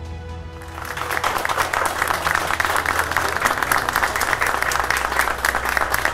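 Many people clapping in applause, starting about a second in, over soft background music.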